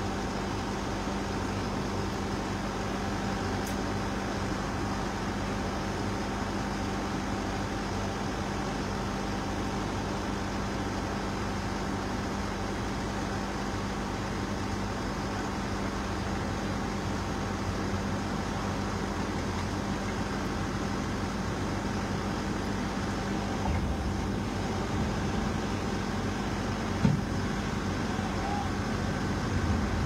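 Heavy diesel engine running steadily with a constant low hum. One short sharp knock about 27 seconds in.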